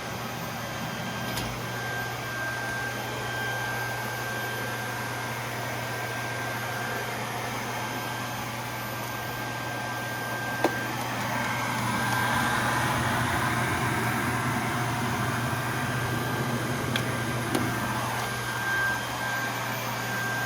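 Vacuum cleaner running steadily with a low hum and a thin high whine, growing somewhat louder about twelve seconds in, with a couple of brief clicks.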